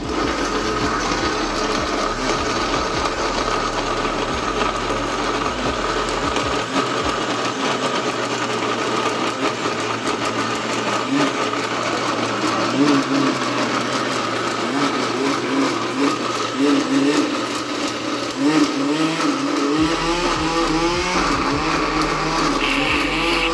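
Countertop jug blender running steadily, grinding whole falsa berries with sugar and a little water into a purée.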